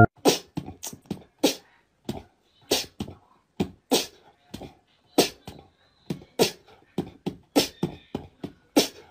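A sparse beatbox-style percussion beat: a sharp hit about every 1.2 seconds, with lighter clicks and thumps between them.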